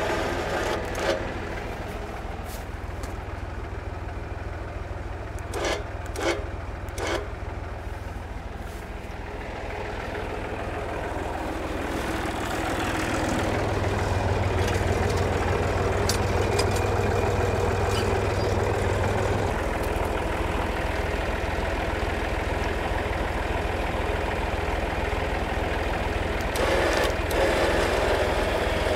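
Volvo BM320 tractor engine idling steadily, with a few sharp clicks and knocks in the first several seconds. The engine grows louder about halfway through.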